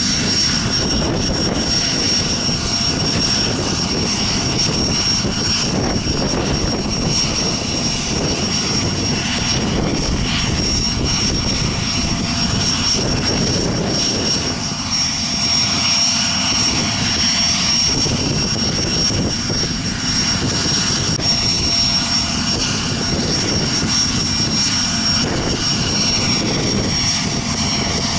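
Business jet's turbofan engines idling steadily while the jet stands on the ramp: a constant high whine over a broad rush.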